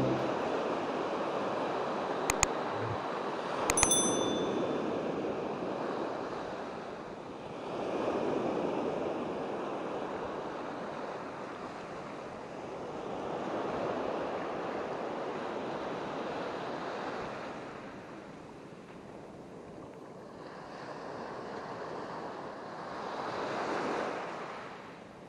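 Surf breaking and washing up the shore, swelling and fading in slow surges every several seconds. A short bright ding rings about four seconds in.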